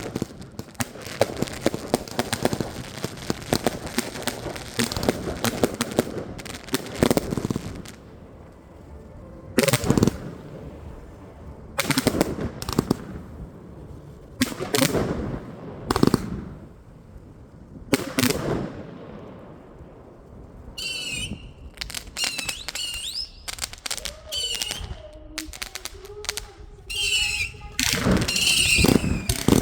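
Consumer firework batteries going off. First a rapid run of shots with crackling, then single loud bursts about two seconds apart, then shots mixed with whistling, screeching effects, and near the end a dense volley as several batteries fire together.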